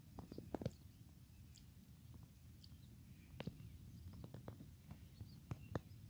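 Faint outdoor background: a low rumble with scattered clicks and taps, and a few faint, short high chirps.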